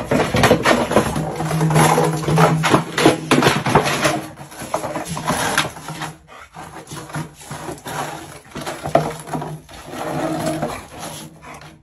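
A dog making drawn-out, low vocal sounds while it paws and rolls on a concrete walkway, with the scuffing and scraping of its claws and body on the ground.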